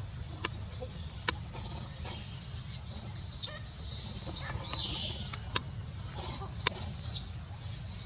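Monkeys giving high-pitched squeals and chirps in a tree, in bouts through the middle and near the end, with several sharp clicks in between.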